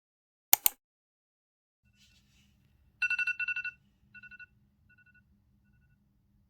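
Two sharp clicks, then rapid high electronic beeping like an alarm or ringtone: one burst of quick beeps followed by three ever fainter, shorter bursts.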